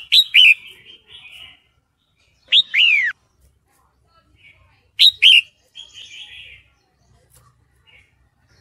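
Female red-whiskered bulbul calling in breeding condition to draw a male, as the recording is billed. It gives sharp falling notes in clusters near the start, one longer falling note about two and a half seconds in and a pair about five seconds in. Softer scratchy chatter follows each cluster.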